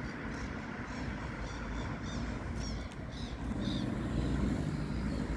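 Low, steady engine rumble of nearby traffic, growing louder with a low hum about three and a half seconds in, with faint high chirps over it in the first few seconds.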